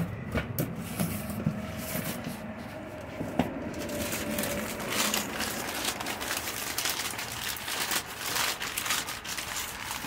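Paper ad circulars rustling and crinkling as a wrapped object is unwrapped by hand, busier and denser from about four seconds in.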